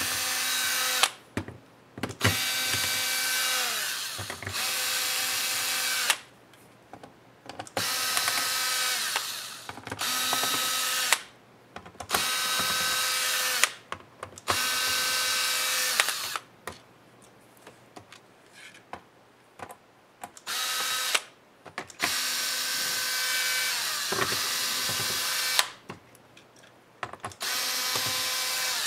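Cordless electric screwdriver backing the screws out of a ThinkPad E550 laptop's bottom case. The motor whines in short runs of a second or two, about a dozen in all, with its pitch rising as each run starts and dropping as it stops, and brief pauses as it moves from screw to screw.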